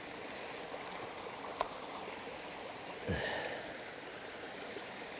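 Steady rush of a flowing stream. A single light click about one and a half seconds in, and a short low sound with falling pitch, the loudest moment, about three seconds in.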